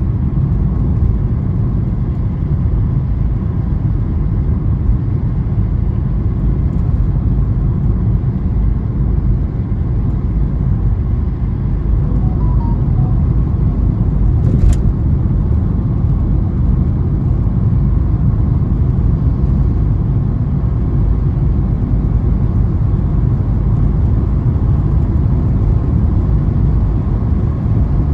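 Steady low road and engine rumble of a car driving, heard from inside the cabin, with one brief sharp click about halfway through.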